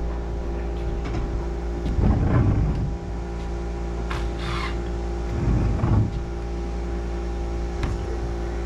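Steady mechanical hum made of several constant tones, like a running motor, with two brief louder rumbles about two seconds and five and a half seconds in.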